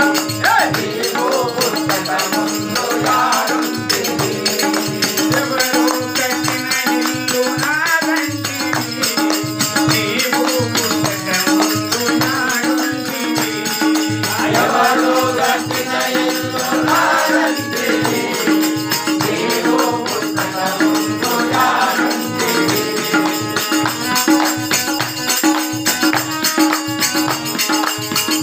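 Telugu devotional bhajan: a man singing over a harmonium, with hand-clapping and jingling hand percussion keeping a steady beat.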